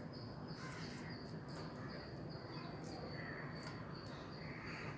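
Wooden spatula softly scraping and tapping as it spreads cooked rice across a steel plate, over a steady low hum.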